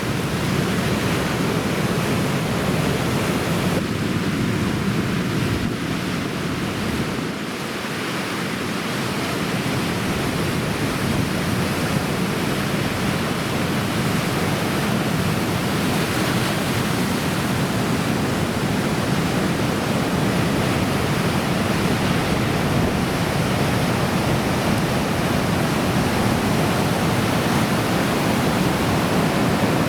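Heavy typhoon-swell ocean surf breaking: a loud, steady rush with no let-up, dipping slightly about seven seconds in.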